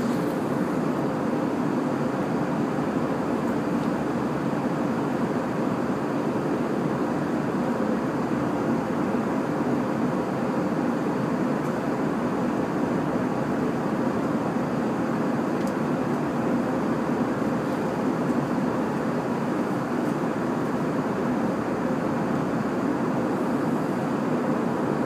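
Steady airliner cabin noise: the even rush of the jet engines and airflow heard inside the passenger cabin, with a faint steady hum within it.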